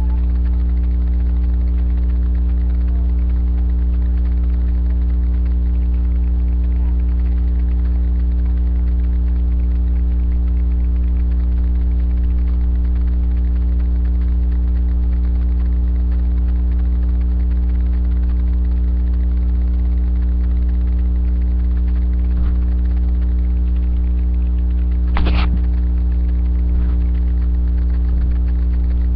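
Steady electrical mains hum, a low buzz with a stack of overtones, loud on the webcam's microphone. A single short click or knock comes near the end.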